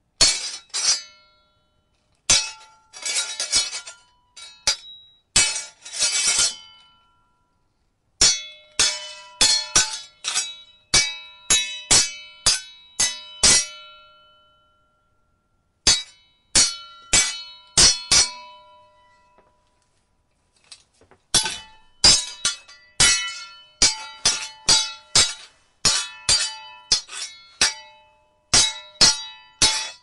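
Sword blades clashing: ringing metal-on-metal clangs in quick flurries of strikes, broken by pauses of a second or two.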